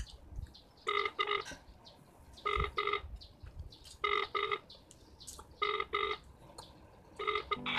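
Phone ringback tone heard through a mobile phone's speaker: a double ring repeating five times about every second and a half, with the call going unanswered.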